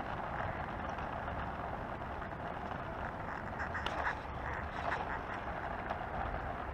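Oxelo Town 9 EF V2 kick scooter rolling over asphalt: a steady rumble and hiss of the wheels on the road, with a few small knocks from bumps.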